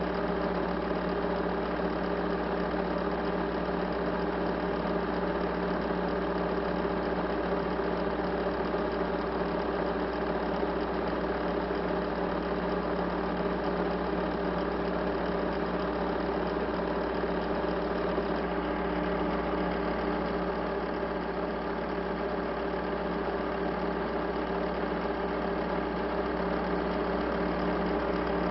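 A steady machine drone, like a motor or engine running, that holds several steady tones and never changes in level.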